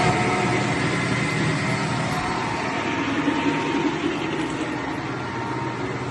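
1M63B screw-cutting lathe running just after start-up, its motor, gearbox and spindle turning with a steady mechanical hum and whine that eases slightly in level.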